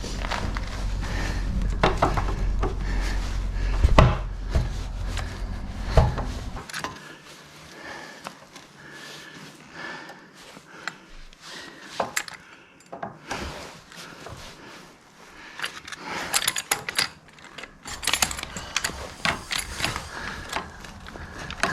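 Hand tools and hydraulic quick-connect couplers being handled: scattered metallic clicks, knocks and rattles, clustering into a rapid clatter near the end. A loud low rumble runs under the first six and a half seconds and then stops abruptly.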